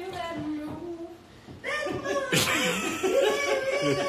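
People laughing and chuckling, with bits of excited voices; the laughter gets louder about a second and a half in, with a sharp click just after.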